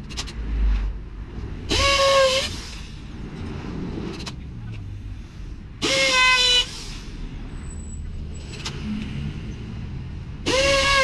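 Power drill running in three short bursts, each quickly spinning up to a steady high whine and then cutting off, sped up with the video.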